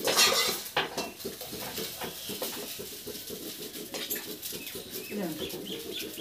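A steel slotted ladle clattering and scraping against a steel kadhai and plate as fried pitha is lifted out of the oil. The clatter is loudest at the start, with a few sharp clinks after it, over a steady frying sizzle.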